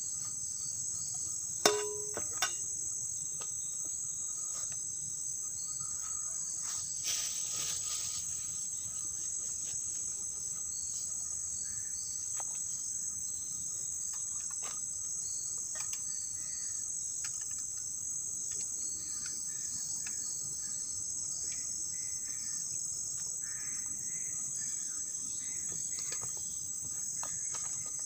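Steady, high-pitched chorus of insects shrilling in dense forest, with a single sharp knock about two seconds in.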